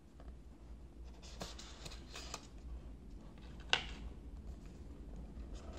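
Cardboard packaging of a phone box being handled: the white inner lid and tray lifted out and set down, with short rustles and card-on-card scraping and one sharp tap a little past halfway.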